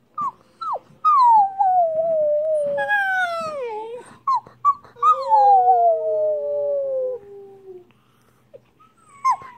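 Siberian husky puppy howling: two short yelps, then long howls that slide slowly down in pitch, broken by short yips.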